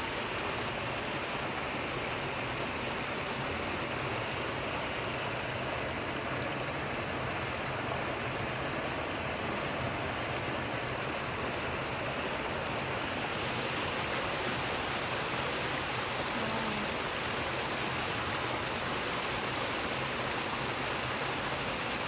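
Water pouring out of a corrugated metal culvert pipe and cascading down rocks into a creek pool: a steady rush of falling water.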